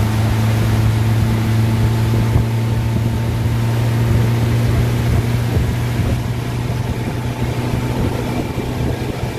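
Outboard motor of an aluminium boat running steadily at speed, a constant low drone, with the rush of its wake and wind. It eases off a little over the last few seconds.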